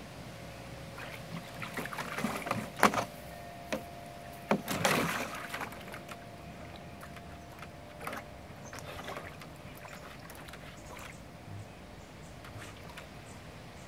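A dog splashing and sloshing water in a plastic kiddie pool, with a couple of louder splashes a few seconds in and smaller ones later.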